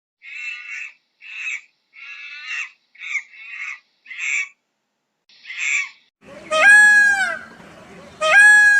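Farm fowl calling: about seven short, rough squawks, then two loud, drawn-out, clear-pitched calls that fall away at the end, about two seconds apart.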